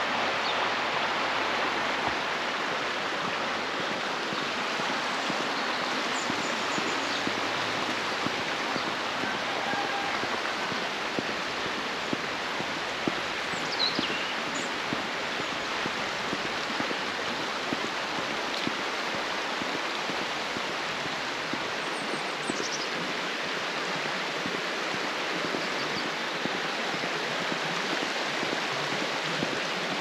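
Rushing stream water flowing over rocks, a steady, even hiss with no break.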